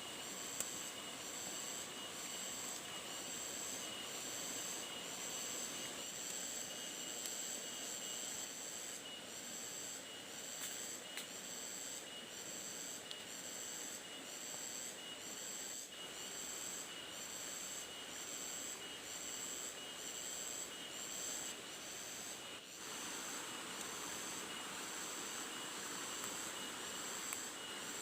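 Insects calling in the forest: a high-pitched chirp repeating evenly about once a second, with a fainter steady high buzz beneath, over a continuous soft hiss.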